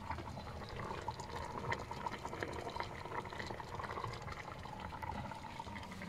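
Saucepan of soup simmering on the campervan's hob: faint, steady bubbling with small ticks and pops.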